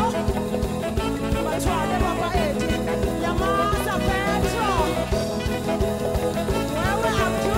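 Music with a steady beat and sliding melody lines.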